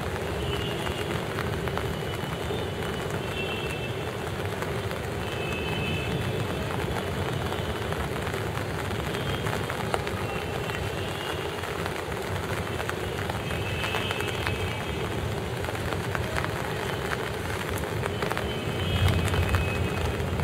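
Steady rain during a thunderstorm, an even hiss of falling water. A low rumble swells briefly near the end.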